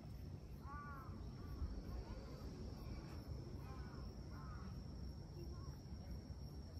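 Crows cawing faintly in the distance: a few short, harsh calls about a second in, then another run of calls between three and four and a half seconds in, over low wind rumble.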